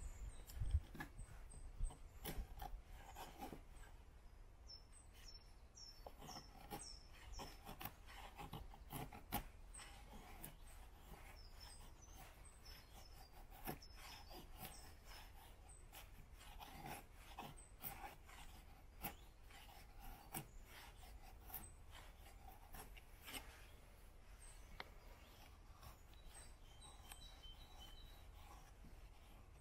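Faint rubbing and scraping with scattered clicks and taps, and a few short high chirps between about four and fourteen seconds in.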